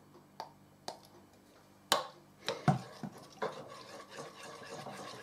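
A dessert spoon knocks sharply against a china bowl a few times, then scrapes steadily round the bowl as it stirs thick mayonnaise-and-ketchup Marie Rose sauce. A few light ticks come before the knocks.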